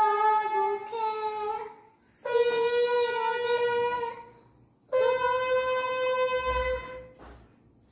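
Toy electronic keyboard playing four held notes, each lasting a second or two with short gaps between, each a little higher than the last.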